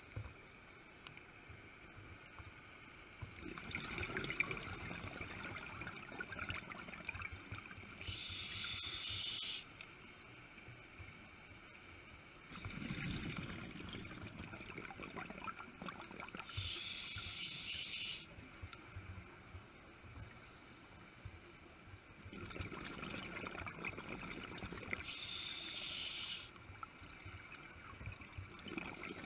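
Scuba diver breathing underwater through a regulator: about three slow breaths, each a longer bubbling exhalation followed by a short, sharp hiss of inhalation, with quiet pauses between.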